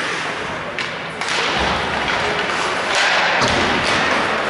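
Ice hockey play around a faceoff: sharp clacks of sticks and puck and a few deep thuds, over a steady hiss of skates on the ice, in a rink's echo.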